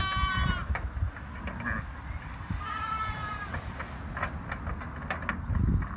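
Lambs bleating: two short high-pitched bleats, one at the start and one about three seconds in, over a low rumbling noise with a few light knocks.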